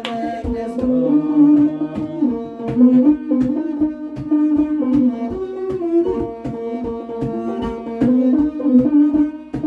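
Instrumental passage of an Ethiopian Orthodox mezmur: a kebero hand drum beats a steady rhythm under a masenqo's sustained bowed melody.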